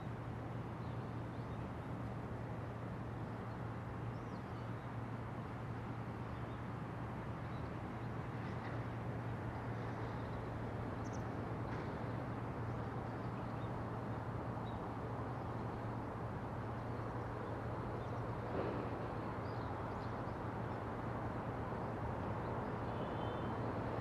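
Steady outdoor background noise with a constant low hum, with a few faint high chirps scattered through it.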